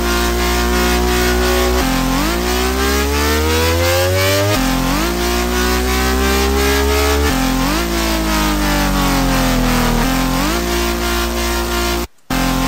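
Drum and bass synth bass from a software synthesizer, playing a looped pattern of held notes that slide up and down in pitch, with long rising glides and one falling glide. It cuts out briefly near the end and starts again.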